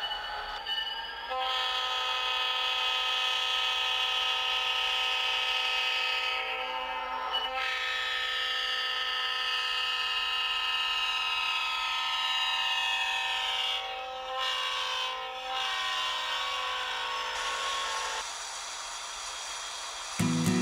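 A locomotive's multi-note horn sounds a long, steady chord. It then blows again, sliding slowly down in pitch, and stops a couple of seconds before the end.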